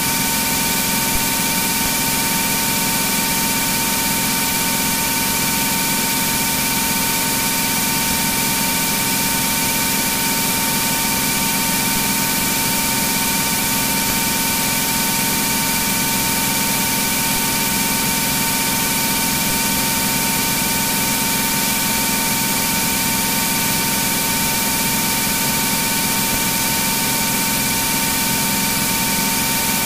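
Cirrus SR22's engine and propeller droning steadily in flight, heard inside the cockpit as an even hiss with a few steady whining tones.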